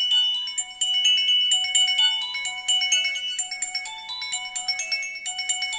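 An old Nokia mobile phone playing a polyphonic ringtone through its small loudspeaker: a quick, repeating melody of short, bright notes, several a second.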